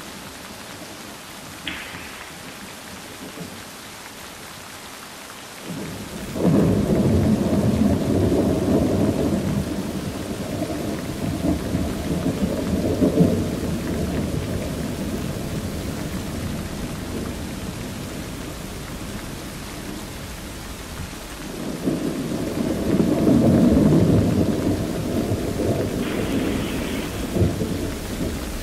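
Thunderstorm: steady rain hiss with two long rolls of thunder. The first breaks in suddenly about six seconds in and rumbles on for many seconds, and the second builds up about twenty-two seconds in.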